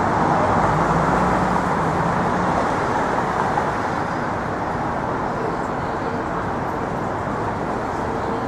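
Steady city street traffic noise with vehicles running past, a low engine note held through the first couple of seconds and a thin high tone near the end.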